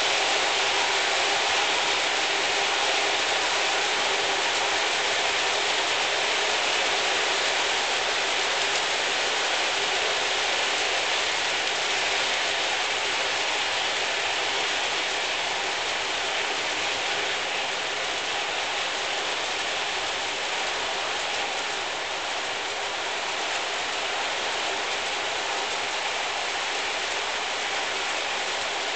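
O scale model freight cars rolling past on metal track, their wheels making a steady, even rolling noise that eases slightly toward the end.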